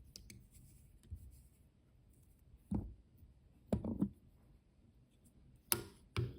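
Quiet handling sounds at a fly-tying vise as thread is wrapped to bind down a zonker strip: faint rubbing and scratching, broken by a few light clicks and knocks, the sharpest near the end.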